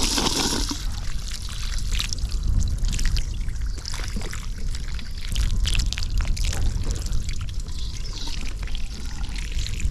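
Water from a garden hose pouring and splashing onto a mud-caked toy monster truck, rinsing off the dried mud; the splashing is loudest at the start.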